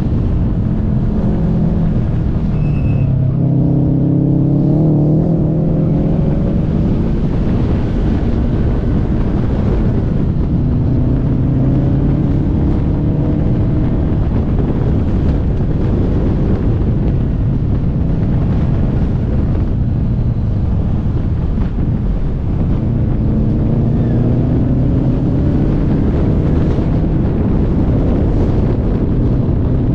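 Car engine pulling hard through corners, its pitch rising several times under acceleration and dropping between pulls, over constant road and wind noise.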